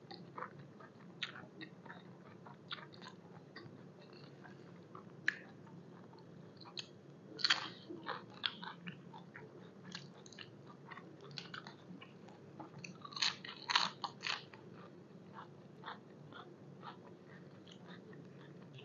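Close-up chewing and crunching of crisp raw vegetables and tripe salad, a run of small wet clicks with a few louder crunches partway through.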